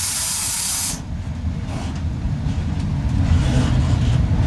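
A loud hiss of compressed air from the EL2 electric locomotive cuts off abruptly about a second in. It gives way to the low rumble of the locomotive rolling along the track, which grows louder.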